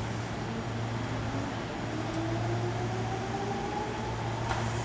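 Seibu 2000-series electric train accelerating away from the station, its traction motors whining slowly upward in pitch over a steady low hum.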